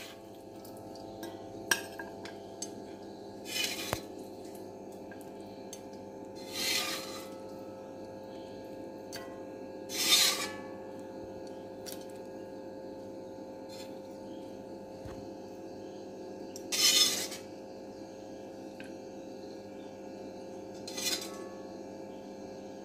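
A steel slotted spatula scraping and clinking against a metal kadai as chilli chicken is scooped out onto a plate: about six short scrapes a few seconds apart, over a faint steady hum.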